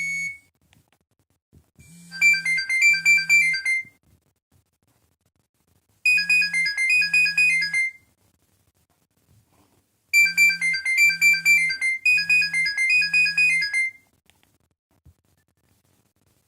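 Nokia 3108 mobile phone playing a ringtone: a quick, high-pitched electronic melody in phrases of about two seconds, repeated four times with short pauses after the first two, over a low steady buzz under each phrase. It stops near the end.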